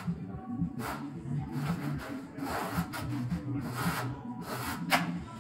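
Notched trowel scraping and combing thinset mortar across a concrete floor: a run of uneven rasping strokes, with one sharper scrape about five seconds in.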